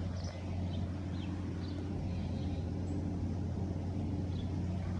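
Steady low outdoor rumble with faint, short high chirps now and then.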